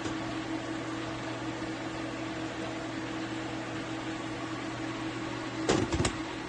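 Portable induction hob running under a pot: a steady hum from its cooling fan and coil. A couple of sharp knocks come about five and a half seconds in.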